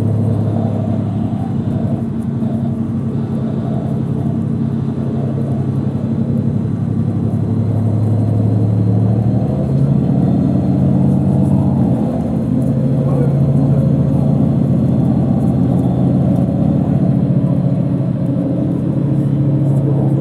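Mercedes-Benz Citaro C2 city bus engine and drivetrain running at highway speed, heard from inside the bus cabin. Its steady low drone shifts in pitch about halfway through.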